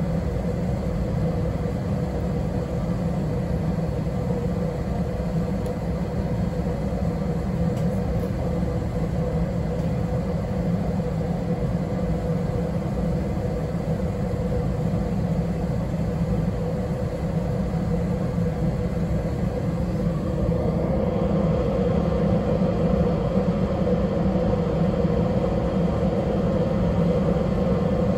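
Steady low rumble and hum inside a small narrow-gauge electric railcar standing at a station. About twenty seconds in it grows louder and higher tones join.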